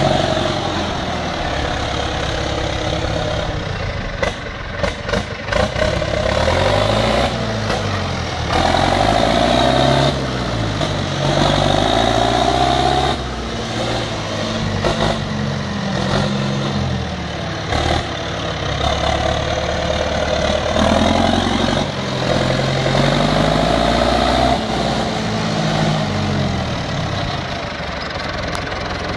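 Marshall 804 4WD tractor's diesel engine running as the tractor is driven, its revs rising and falling in repeated swells.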